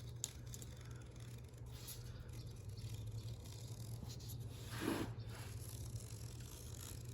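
Utility knife trimming excess window screen mesh along the spline groove, a faint scratchy scraping, with one louder rasp about five seconds in, over a steady low hum.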